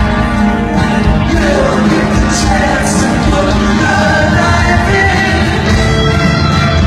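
Live rock band playing, with a sung vocal line over the instruments.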